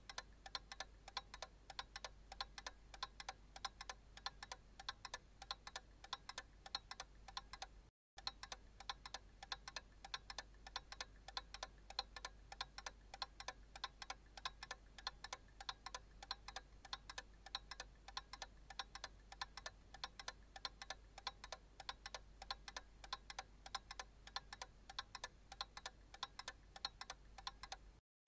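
Analog clock ticking steadily in a quick, even run of light ticks over a faint low hum. The ticking drops out briefly about eight seconds in and again near the end.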